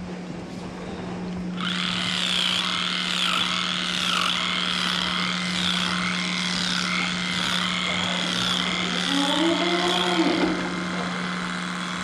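Dairy barn sounds: a steady low hum, with a dense, wavering high chatter that starts abruptly about two seconds in. Near the end a cow moos once, drawn out.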